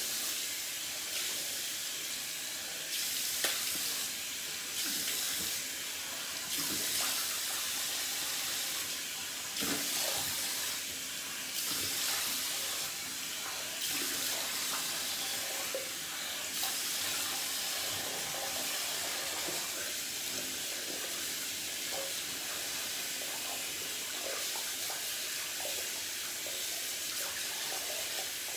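Bathroom sink tap running steadily while water is splashed onto the face to rinse off shaving lather, with small splashes and knocks now and then.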